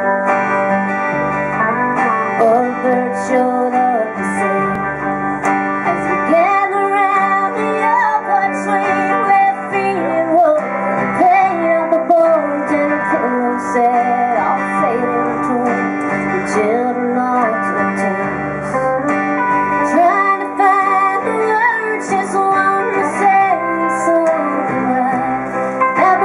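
Live country song: a woman singing to guitar accompaniment.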